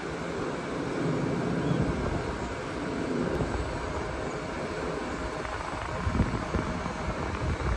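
Steady drone of a stationary LIRR M7 electric commuter train's on-board equipment, with a few faint steady whines, under gusts of wind on the microphone.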